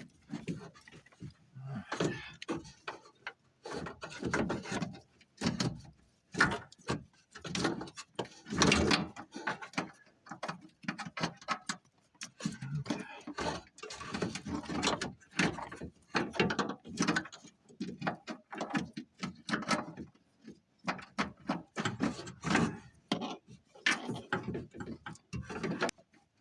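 Old door wiring harness and its plastic connectors being worked and pulled out through the rubber door boot of a Ford F-150: irregular rubbing, scraping and clicking of wires, clips and rubber, in uneven bursts.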